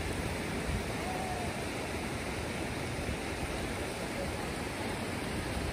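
Steady rushing of flowing water from the river and the stone spout beside the path.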